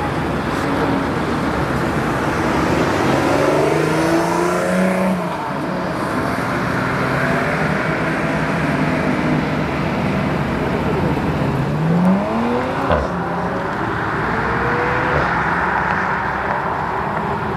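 Lotus Exige's supercharged V6 revving and accelerating hard, its pitch rising through the gears, then a second car accelerating away with another rising rev and a sharp crack. Background voices murmur under the engines.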